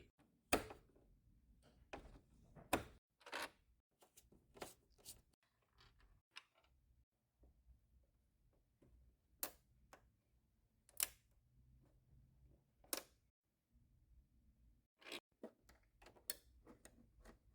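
Sparse sharp clicks and knocks, about twenty in all, of hand work on a PlayStation 3: screws and tools against its plastic casing.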